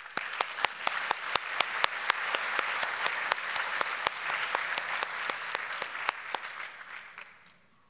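Audience applause with many sharp single claps standing out close to the microphone, dying away near the end.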